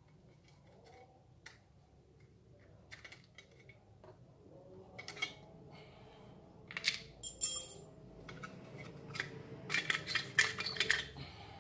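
Light metallic clicks of a hex key turning screws in the engine cover of a Honda UMR435T brush cutter. In the second half come louder clinks and rattling as the metal muffler cover is worked loose, densest near the end.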